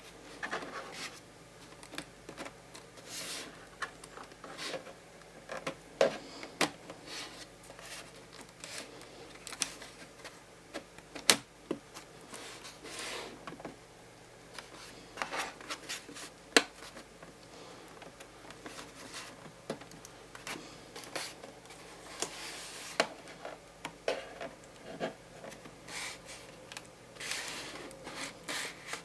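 Hands working on a Lenovo W530 laptop's internals during a RAM upgrade: irregular clicks and taps of plastic and metal parts, with rubbing and scraping between them and a few sharp snaps.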